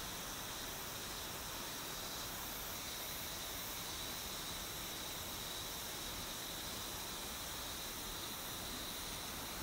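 Steady, even rush of a clear mountain river flowing over rocks.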